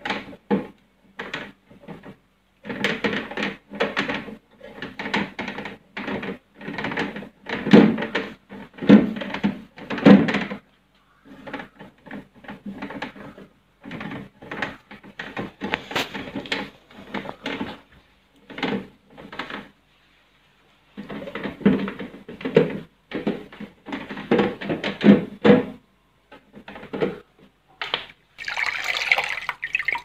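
A damp cloth scrubbing and wiping the plastic door bins and egg tray of a refrigerator, in irregular strokes of rubbing with light knocks of the plastic.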